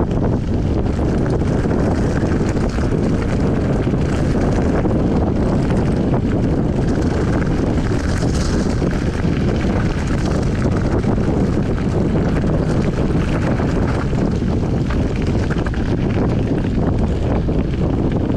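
Steady wind rush on the microphone of a mountain bike riding fast downhill, over the noise of its tyres on a gravel and dirt track.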